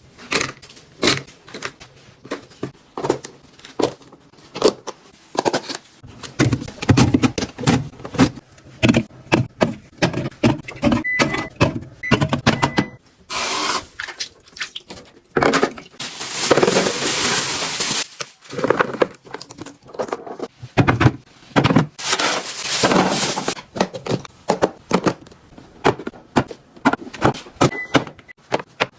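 Plastic fridge storage boxes being handled, with many quick clicks and knocks of lids and boxes. There are a few longer stretches of hissing noise partway through.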